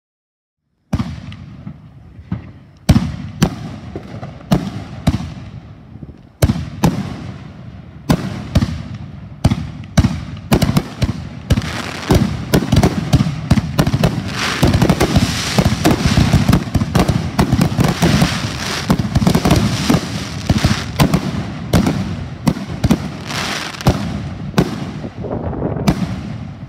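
A 50-shot mortar rack of mixed aerial firework shells, mostly Danger Doll Maneater shells, going off: shells launching and bursting in loud sharp bangs. It starts suddenly about a second in with separate bangs, thickens into a dense, nearly continuous barrage about halfway through, and thins out near the end.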